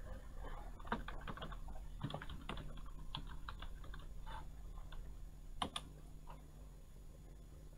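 Typing on a computer keyboard: a quick run of key clicks for a few seconds, then a louder pair of keystrokes a little after the middle.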